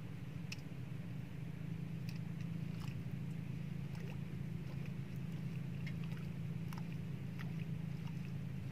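Steady low hum of a boat motor running, with scattered light clicks and taps on top.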